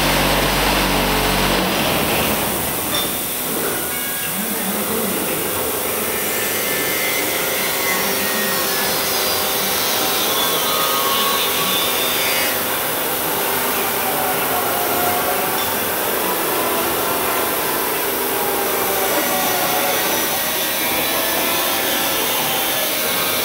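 Steady machinery noise in a precast concrete factory hall: a dense, even hiss with faint wavering whines over it.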